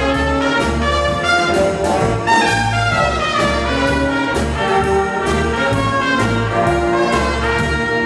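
A big band playing jazz live: saxophone, trumpet and trombone sections over a steady beat with bass notes. About two and a half seconds in, the horns play a falling run.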